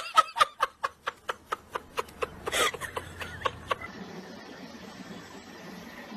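Laughter: a quick run of short laughs, about four or five a second, spacing out and fading over about four seconds, with one louder, breathy laugh in the middle. After that there is only a quiet room background.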